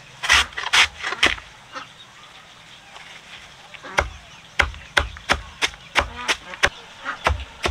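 Repeated sharp chopping strokes: a few slower blows near the start, then a quick, even run of about three strikes a second from about four seconds in.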